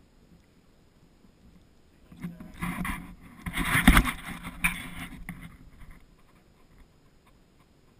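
Handling noise in an aluminium boat: a burst of rubbing and clattering knocks lasting about four seconds, with a heavy thump near the middle.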